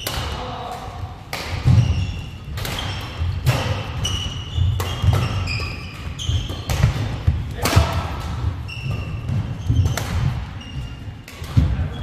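Men's doubles badminton rally: sharp racket-on-shuttlecock hits about once a second, with short high squeaks of court shoes on the wooden floor and thudding footfalls between them.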